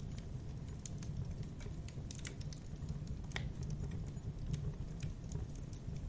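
Campfire burning with irregular sharp crackles and pops over a steady low rumble of the flames, one pop standing out a little past the middle.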